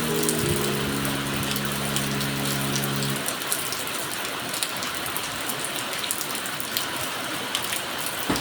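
Steady rain with many separate drops ticking, over a soft held music chord that stops about three seconds in.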